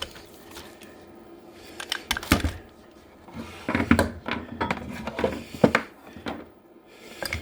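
Scattered clicks and knocks of the light and its cable being handled on a workbench as it is readied to be connected for testing, in a few short clusters.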